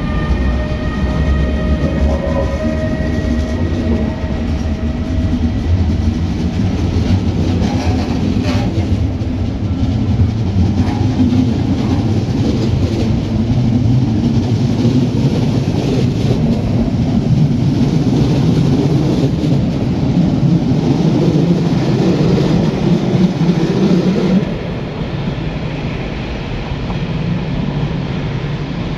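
Train running on rails: a steady rumble with a few clicks. A high whine of several pitches, rising slowly, fades out in the first few seconds, and the noise drops suddenly near the end.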